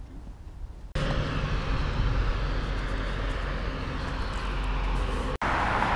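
Steady outdoor rushing noise with a deep rumble beside a road, wind and traffic together, cutting in suddenly about a second in and dropping out for an instant near the end.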